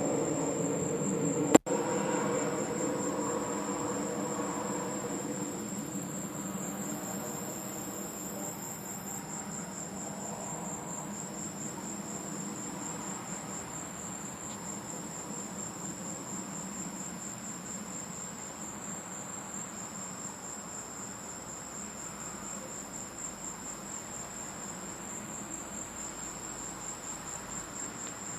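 Crickets chirping in a steady, fast-pulsing high trill. A low rumble fades away over the first several seconds, and there is one sharp click about a second and a half in.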